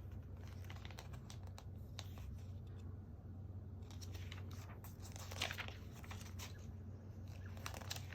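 LEGO pieces being handled: scattered small plastic clicks and crinkling rustles over a steady low hum.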